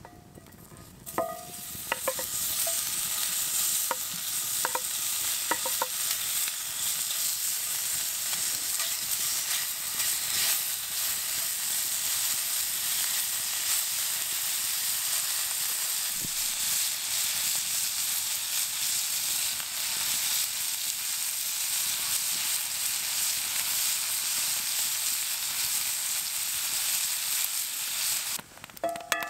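Cubes of smoked pork belly sizzling steadily as they fry in a hot cast-iron skillet, the sizzle starting about two seconds in as the meat goes into the pan. A few sharp metallic clinks of a knife against the skillet come early, and the sizzle cuts off suddenly near the end.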